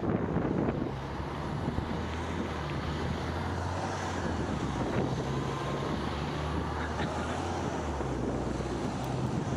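Wind buffeting the action camera's microphone as a Cannondale Trail 7 mountain bike rolls along, with a steady low rumble underneath and a few faint knocks.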